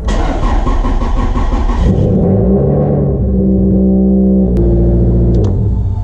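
Toyota four-cylinder engine cranked by the starter and catching at once, then settling into a steady fast idle. This is the first start after the fuel injectors were refitted.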